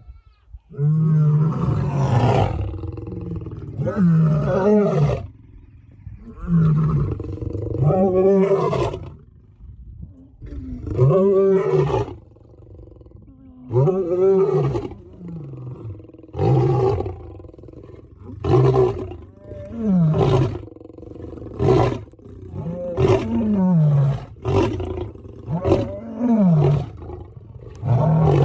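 Lion roaring: a bout of deep, drawn-out moaning roars, one every few seconds, that turns into a run of shorter grunts coming about once a second near the end.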